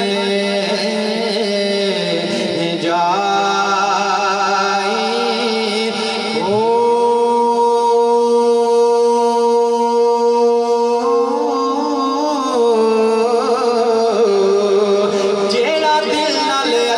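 A male naat reciter singing a long, drawn-out melodic passage of a devotional kalam, with no clear words. About six seconds in he holds one steady note for roughly six seconds, then the melody moves on again.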